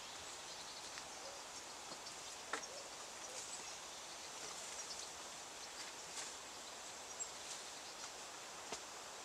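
Faint outdoor woodland background: a steady high hiss with scattered small clicks and crackles, a few sharper ones about two and a half, six and nine seconds in.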